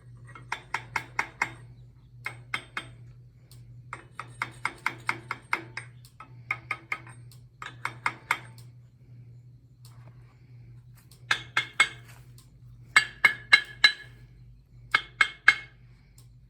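Light hammer taps on steel parts, in short runs of about four strikes a second with brief pauses, each tap ringing briefly, over a steady low electrical hum.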